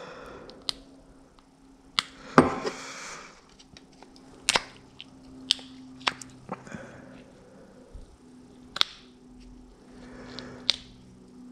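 Sharp metal clicks and taps, scattered roughly a second apart, as a screwdriver and small metal parts knock against a dismantled Dell'Orto carburetor body. A faint steady hum runs underneath.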